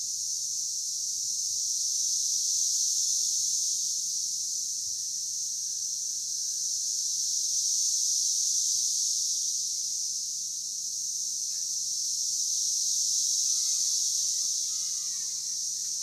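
Chorus of Brood X periodical cicadas: many males singing their mating call together as one steady, high-pitched drone that slowly swells and eases.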